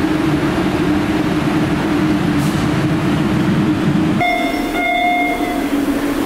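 Steady hum and rumble of a moving train car. About four seconds in the rumble drops away and a high electronic beep sounds in two parts.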